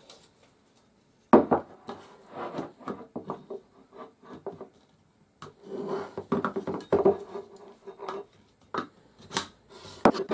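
Office chair base parts being handled and fitted together on a wooden table: a sharp knock about a second in, then irregular clattering, scraping and clicks as the base legs are pushed into the star-shaped centre hub.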